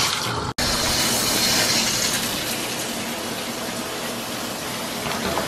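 Water running from a bathtub spout, then, after a brief break about half a second in, a shower head spraying: a steady rush of water.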